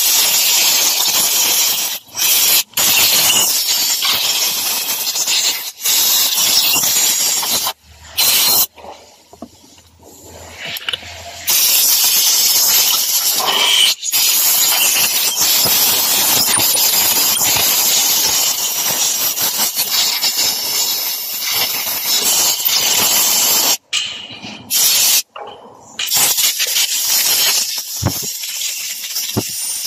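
Compressed-air blow gun hissing in long blasts as it blows sand and dirt off a vehicle's floor wiring connectors. The blast stops briefly several times and eases off for a few seconds about a third of the way in.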